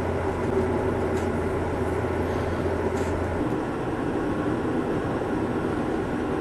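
Steady road and engine noise from a moving car. Its low hum stops about three and a half seconds in, leaving a steady rushing noise.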